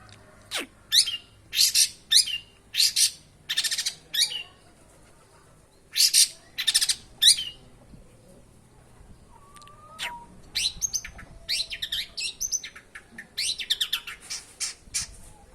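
Long-tailed shrike (cendet) singing: a run of loud, harsh, short calls, a pause, then a quicker run of short chattering notes from about ten seconds in.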